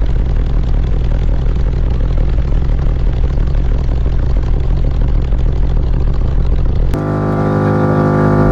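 Six 18-inch Crossfire V2 subwoofers playing bass at extreme volume: a dense, noisy rumble. About seven seconds in it switches abruptly to a steady deep bass note with a stack of overtones.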